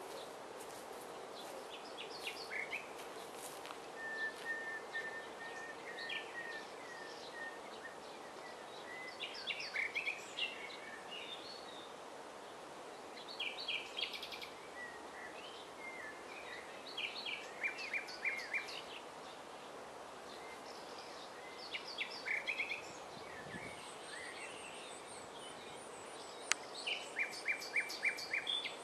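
Common nightingale singing: short, varied phrases every few seconds with pauses between them, including a run of soft whistled notes about four seconds in and a fast series of repeated notes near the end.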